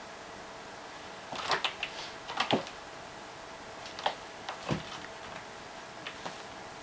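Bengal cat playing on a carpeted cat tree and wicker basket: irregular clicks, scratches and light knocks from its paws and claws, bunched in a quick flurry between about one and a half and two and a half seconds in, then a few single ones.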